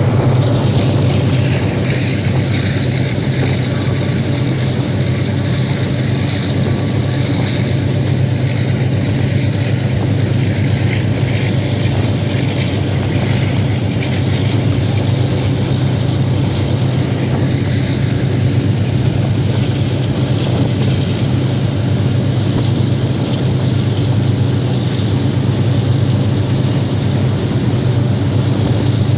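Diesel-electric locomotive engine working under load on a steep climb, a steady deep drone with the rush of the moving train over it.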